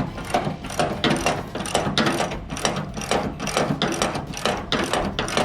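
A ratchet clicking steadily, about three clicks a second.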